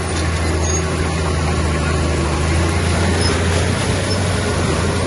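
Heavy diesel engine of earthmoving machinery running steadily with a low, even drone.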